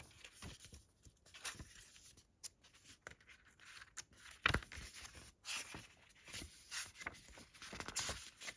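Faint handling noise from a small paper booklet being leafed through: soft page rustles with scattered light clicks and taps.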